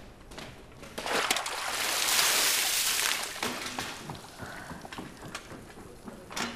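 A bucketful of water dumped from above, splashing down onto a person in one rushing gush that builds about a second in and dies away after a couple of seconds, followed by small drips.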